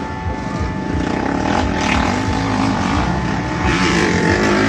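Motocross bike engines running on the dirt track, one revving up with its pitch rising over the second half.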